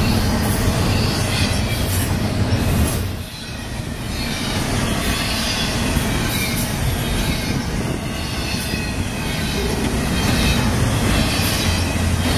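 A double-stack intermodal train's container well cars rolling past close by: a steady rumble and clatter of steel wheels on rail. The sound dips briefly about three seconds in and then builds again.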